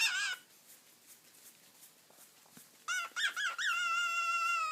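Male cockatiel calling while mating with a hand: a short chirp at the start, then a few quick chirps about three seconds in that run into one long steady whistle.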